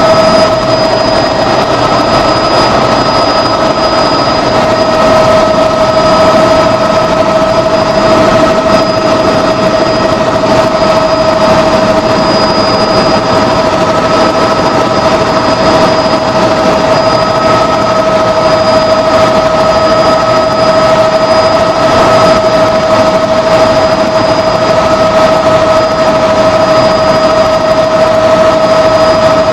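Helicopter's turbine engine and rotors running steadily in flight: a constant loud whine with several fixed tones over an even rushing noise, unchanging throughout.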